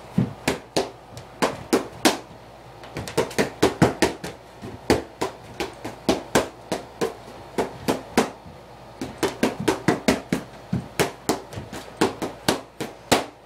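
Boxing gloves striking red focus mitts: rapid sharp hits in flurries of several punches a second, with short pauses between the combinations.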